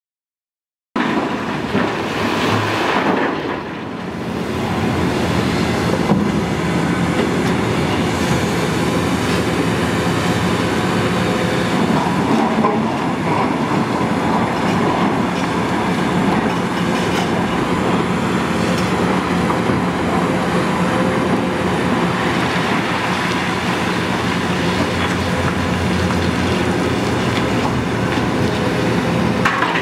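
Hitachi ZX690LCH-6 mining excavator's diesel engine and hydraulics running steadily under load as it digs and swings with blasted granite. The sound begins about a second in.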